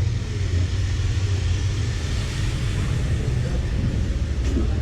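Steady low rumble of a running motor vehicle, with a hiss of noise above it.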